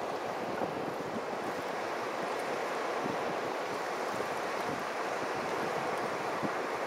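Steady rush of surf on a beach, an even washing noise with no breaks.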